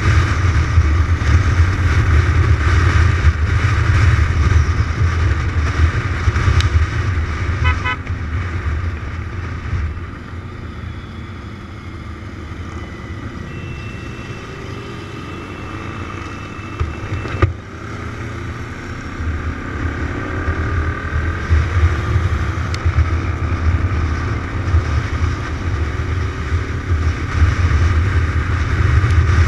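Kawasaki motorcycle riding on the road with heavy wind rumble on the microphone over the engine. The engine eases off and the sound drops about a third of the way in, then the engine pitch climbs again as it accelerates.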